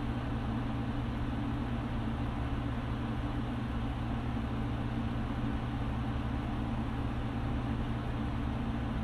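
Steady low mechanical hum with an even hiss, unchanging in level.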